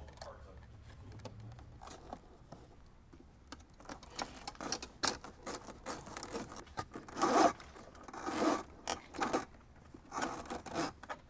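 A wire being pulled and fed down behind plastic interior trim, rubbing and scraping in irregular strokes. It starts a few seconds in, and two strokes a little past the middle are the loudest.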